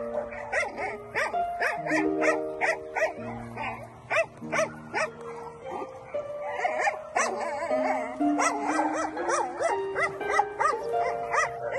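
Dogs barking repeatedly in short calls over background music with held melody notes and a steady ticking beat.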